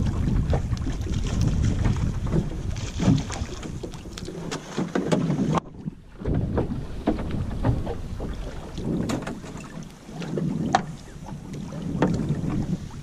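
Wind buffeting the microphone in a low rumble, with scattered sharp knocks and rustling as a monofilament fishing net is handled over the gunwale of a small open boat. The sound cuts out briefly about six seconds in.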